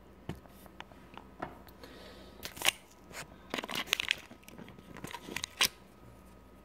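Handling noise from a phone being pushed and re-secured on its tripod right at the microphone: scattered clicks, knocks and rustles, with the sharpest knocks a little before the middle and near the end.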